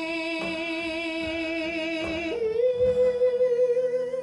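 A man singing the long drawn-out final note of a romantic ballad with vibrato. A little over halfway through he steps up to a higher note and holds it to the end, over acoustic guitar strums.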